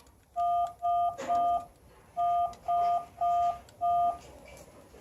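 Payphone prop's keypad sounding touch-tone (DTMF) beeps for the digit 1, seven times in a run of three and then a run of four, each beep about a third of a second long. These are the later presses of a ten-digit number of all ones, dialed to call up the prop's English audio file.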